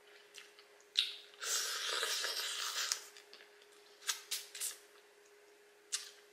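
Crab leg shells being cracked and pulled apart by hand: a sharp snap about a second in, a longer crackling rush, then a few smaller clicks.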